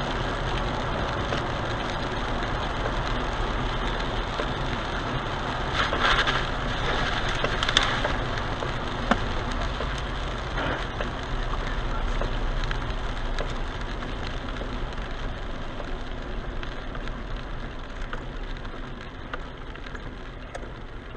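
Steady road noise heard from inside a car driving on a wet road in the rain, with tyre hiss and engine mixed with rain on the windshield. Louder noisy swells come about six and eight seconds in, and a sharp click follows shortly after.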